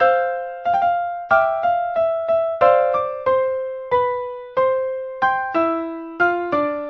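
Solo piano playing a slow, gentle melody of single notes and two-note chords in the middle register, each note struck and left to fade, about two or three notes a second in an uneven rhythm.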